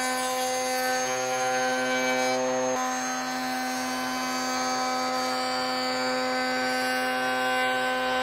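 Table-mounted router running at a steady, high whine while a solid birch board is fed along its shimmed fence, the bit jointing the board's edge. The tone shifts slightly about a second in and again near three seconds in as the cut goes on.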